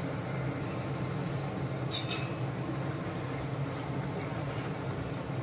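Spinach pakodas deep-frying in hot oil, a steady sizzle over a low steady hum, with a metal slotted spatula clinking against the pan about two seconds in.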